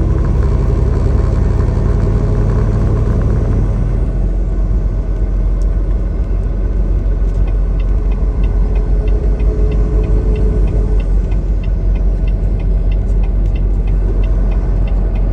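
Semi truck's engine running under way, heard from inside the cab; its strong low drone drops back about four seconds in. From about seven seconds there is also a light, even ticking, two to three ticks a second.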